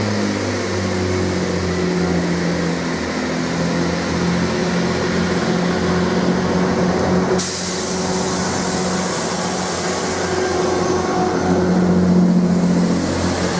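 GWR Class 165 Networker Turbo diesel multiple unit pulling out and passing close by, its underfloor diesel engines running steadily under power. A sudden hiss joins about seven seconds in.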